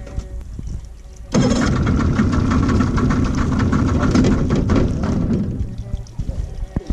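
A boat's engine running, surging louder about a second in and easing off again near the end.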